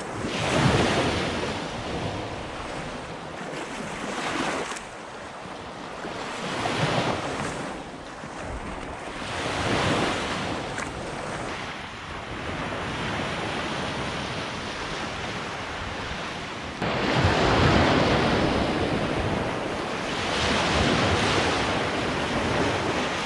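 Small Lake Michigan waves breaking and washing up on a sandy beach, the surf swelling and falling back every few seconds and loudest about two-thirds of the way through. Wind buffets the microphone.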